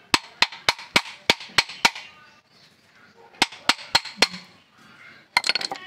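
A series of sharp metallic taps or knocks, about three to four a second: seven in a row, then four more after a pause, then a quick flurry near the end.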